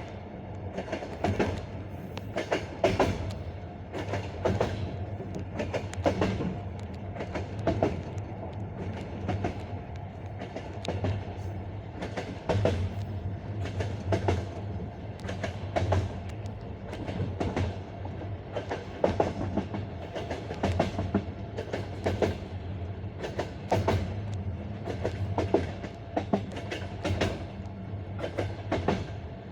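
Passenger coach wheels rolling over jointed rail, giving the classic clickety-clack: sharp knocks in quick pairs and clusters every second or two as the bogies cross the rail joints, over a steady low rumble of the running train.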